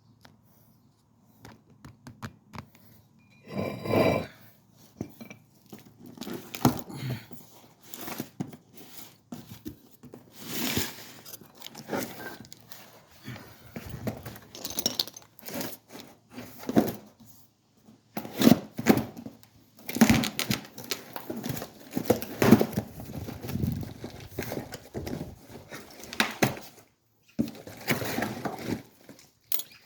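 A new brake disc being unpacked: irregular crinkling and tearing of its wrapping, with scattered knocks and rustles as it is handled.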